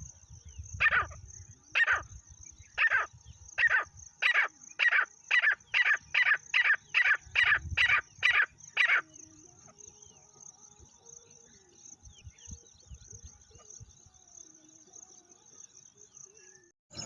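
Francolin (teetar) calling: a series of loud, harsh notes, about one a second at first and then speeding up to about two a second, stopping abruptly about nine seconds in. A steady high-pitched whine runs underneath, and faint chirps follow the calls.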